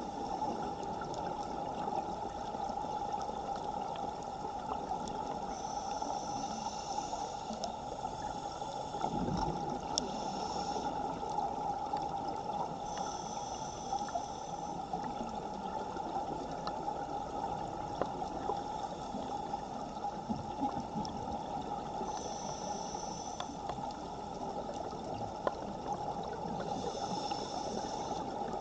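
Underwater ambience heard through a camera housing: a steady, muffled rush of strong current. A scuba regulator hisses faintly about every seven or eight seconds, and a brief low bubbling rumble comes about nine seconds in.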